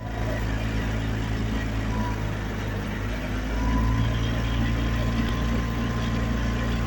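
Boat engine running steadily with a low hum, its note getting a little louder and fuller about three and a half seconds in.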